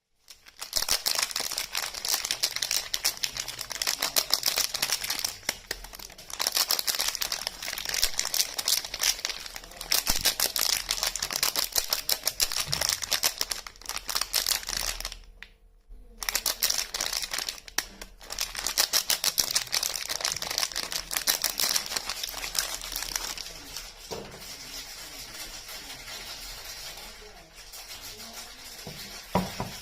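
Crinkly wrapping on soap bars being handled and unwrapped: a dense run of crackles, stopping briefly about halfway and softer near the end.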